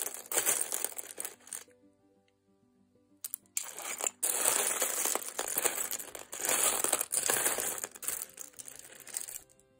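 A plastic bag of buttons crinkling and rustling as it is handled and opened, in two stretches with a short pause about two seconds in.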